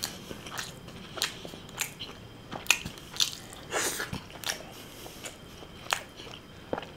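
Close-miked chewing of a chicken malai seekh kebab, a wet mouth smack or click about every two-thirds of a second.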